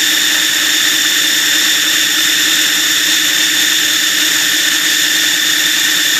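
Food processor motor running steadily, a constant whine, blending garlic, lemon juice and oil into toum garlic sauce.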